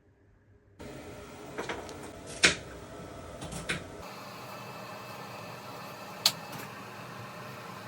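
A few sharp knocks and clunks over steady background noise, the loudest about two and a half seconds in and another near the six-second mark.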